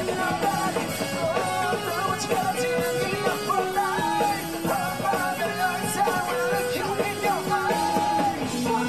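A live rock band playing, with a male lead singer singing into a microphone over drums and the band.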